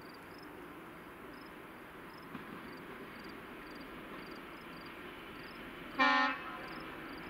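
Locomotive 754-028's horn gives one short toot about six seconds in, over steady cricket chirping and the low hum of the approaching train, which grows louder.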